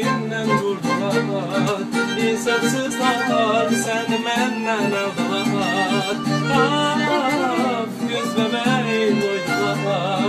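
Violin playing a wavering melody over a strummed acoustic guitar accompaniment, an instrumental passage between sung verses.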